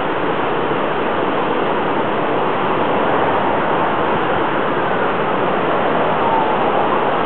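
Steady rush of ocean surf breaking on the beach. About five seconds in, a faint ambulance siren starts to wail in over it, its pitch sliding up and down.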